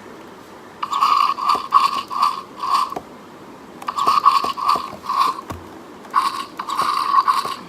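Plastic clicking and grinding from a dinosaur action figure's built-in mechanism as it is worked by hand: three runs of quick repeated ratcheting strokes, with short pauses between them.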